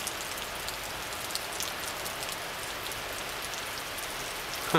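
Heavy summer rain pouring down onto wet pavement and parked cars: a steady, even hiss with scattered fine drop ticks. A short, louder sound cuts in right at the end.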